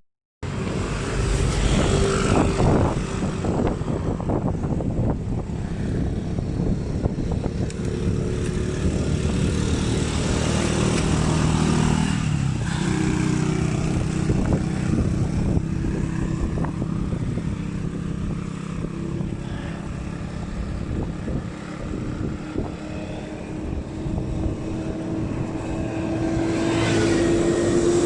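Vehicle engine running under way, with road and wind noise, its pitch climbing slowly near the end as it speeds up or climbs.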